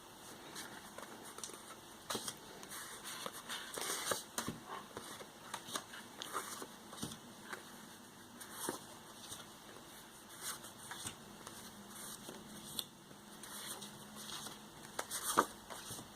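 Scrapbook pocket-page cards being handled: soft rustling and light taps of card stock, with a sharper tap near the end.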